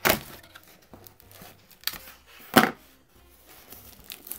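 Plastic shrink wrap being torn off a cardboard trading-card hobby box and the box pulled open. There are two sharp crinkling rips, one at the very start and one about two and a half seconds in, with smaller rustles and crackles between them.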